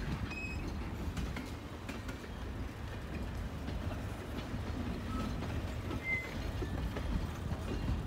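Double-stack intermodal freight cars rolling past: a steady low rumble of steel wheels on the rails, with scattered clicks and a few brief, high wheel squeaks.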